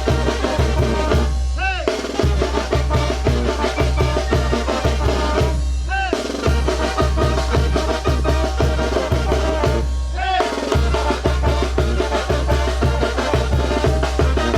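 Wind band (banda) playing a chinelo son, the carnival call for the chinelos' jump: a pitched melody over a steady bass drum and snare beat, which breaks off briefly about every four and a half seconds.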